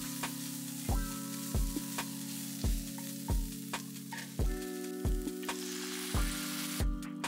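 Food frying and sizzling in a pan, a steady hiss, under background music with a steady beat.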